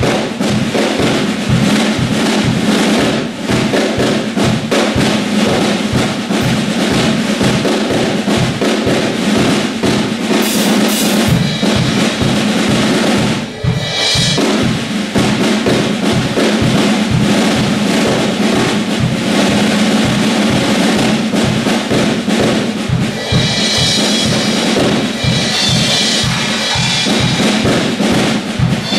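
Drum kit played as a solo: fast, busy strokes on snare and toms over the bass drum, with rolls and a short break about halfway through.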